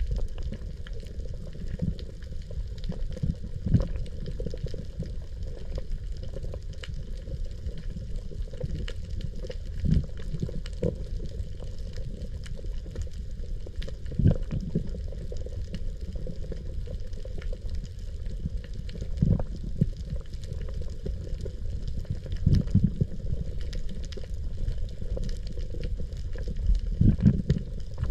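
Water noise picked up by an underwater camera: a low, muffled rumble with irregular louder surges every few seconds.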